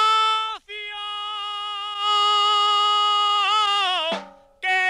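Men singing a Valencian albà, a traditional folk song: one long held note that wavers and falls away about four seconds in, then a short sung phrase near the end.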